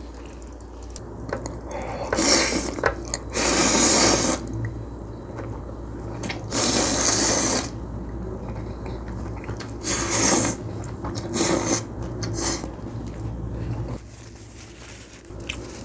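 A person slurping thick, chewy noodles in spicy sauce, in about six loud bursts of up to a second each, with chewing between.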